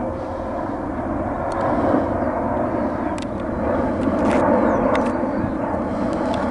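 Jet engines of a Boeing 777-200ER airliner on its descent, a steady rushing drone with a faint engine hum in it, swelling a little around two and four seconds in. A few faint high clicks sit over it.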